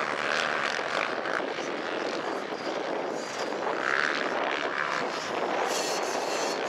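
Enduro motorcycle engines buzzing at high revs as bikes ride the circuit, one passing loudest about four seconds in.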